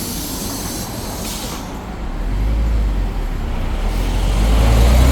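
City bus pulling away from a stop: a hiss of air fades out in the first second and a half, then the Hyundai New Super Aerocity's C6AF CNG engine picks up about two seconds in and grows steadily louder, its pitch rising slightly as the bus accelerates.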